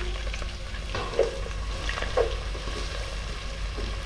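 Chopped onions sizzling in hot ghee in a non-stick pan as they are tipped in and stirred with a wooden spatula, with a couple of sharper knocks about one and two seconds in.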